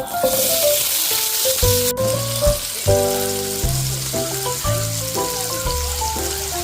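Food frying in hot oil in a pan: a sizzle that starts suddenly, is loudest for the first two seconds and then carries on more quietly. Background music with a melody and bass plays over it.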